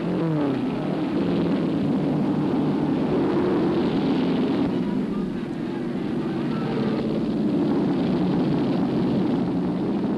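Vintage open-wheel racing car engines running flat out, a continuous drone; near the start one sweeps past, its pitch falling.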